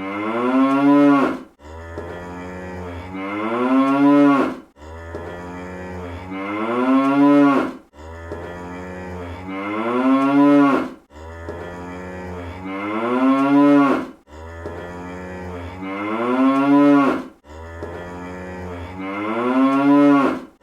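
Cartoon cow moo sound effect, looped: the same 'moo' call repeats identically about every three seconds. Each moo starts low and steady, swells and bends up in pitch, then falls and stops sharply.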